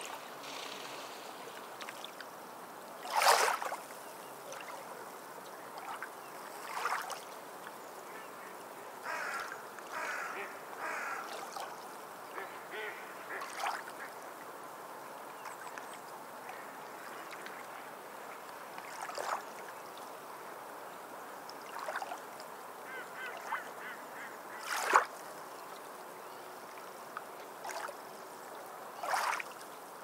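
Sea waves washing onto a sandy beach, a steady surf hiss with brief louder splashes now and then, the loudest about three seconds in and near the end. Short bird calls are scattered through it, bunched together a little before halfway.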